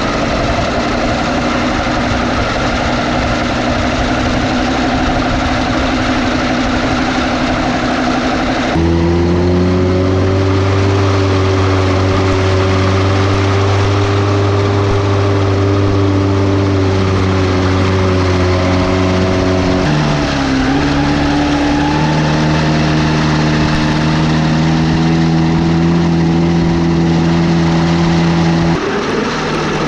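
Tractor engine running the rebuilt Vermeer hay cutter on a test run after its drive pod was reassembled. The engine note steps up and gets louder about nine seconds in, dips briefly around twenty seconds, and falls back just before the end.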